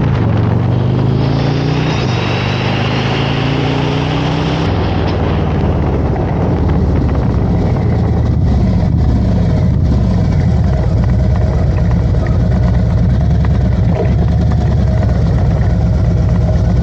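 Harley-Davidson Road Glide's V-twin engine running on the move, its pitch falling and rising several times with throttle and gear changes, over a steady rush of wind and road noise.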